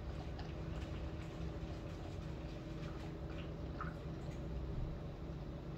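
Typhoon wind and rain heard from indoors: a steady low rumble of wind with an even wash of rain and scattered small drips and taps.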